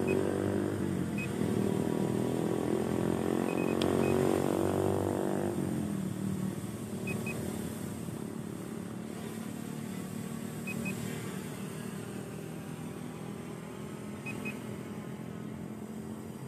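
A steady, pitched motor hum that cuts off suddenly about five and a half seconds in, leaving a fainter hum. A short high double beep repeats about every three and a half seconds.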